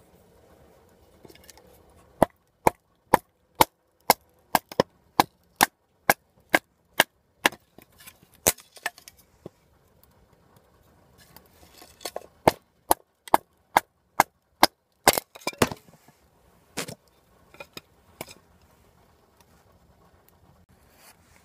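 Survive! Knives GSO-6 survival knife splitting wood with sharp wooden knocks, about two a second. A run of about fourteen knocks, a pause, then a second run of about a dozen, and a few scattered knocks near the end.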